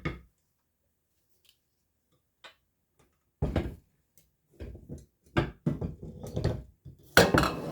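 Near silence for about three seconds, then a run of irregular knocks and clatter, as of things being handled and set down in a kitchen.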